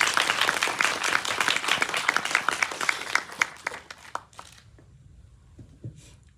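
Audience applause: many hands clapping, thinning and dying away about four seconds in.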